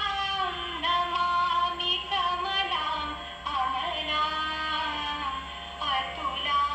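Music with a woman singing a melody in held, gliding notes.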